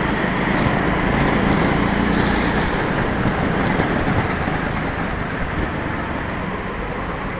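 Go-kart driving at speed, heard from on board: a steady, loud noise of the kart's drive and its tyres on the smooth floor, easing slightly toward the end.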